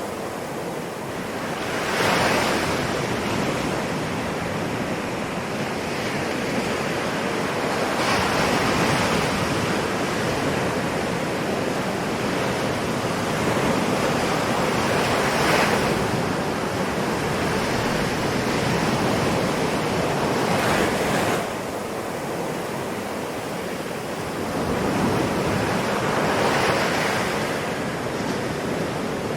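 Ocean waves in a continuous wash of surf, a wave swelling and breaking about every five or six seconds.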